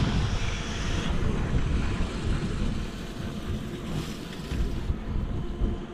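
Wind buffeting the microphone over the steady running of twin Yamaha outboard motors at trolling speed.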